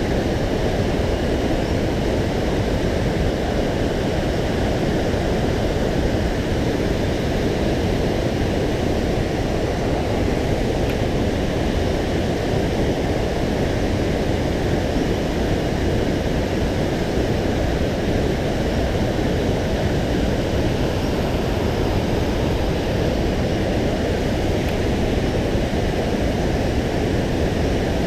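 Mountain stream water rushing over rocks, a steady loud noise that does not change.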